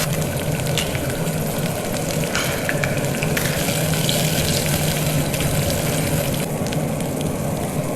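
Food frying in hot oil in a pan: a steady sizzle with a few faint ticks.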